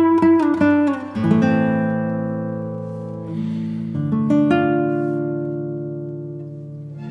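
Background music on acoustic guitar: a few quick plucked notes, then strummed chords left to ring and fade.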